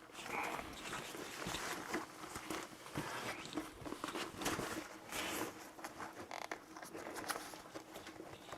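Zipper on a new fabric camera bag being pulled along in short, uneven scratchy runs, stiff because it is still new.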